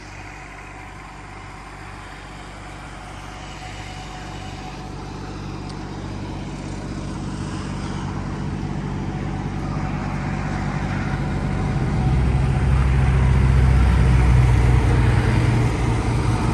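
Bobcat 322 mini excavator's three-cylinder Kubota diesel running at a steady speed, growing steadily louder through most of the stretch.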